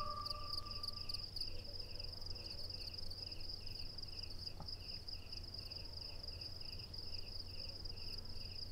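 Crickets at night: a steady, high, pulsing trill with a lower chirp repeating about twice a second, over a low hum. A held music tone fades out about a second in.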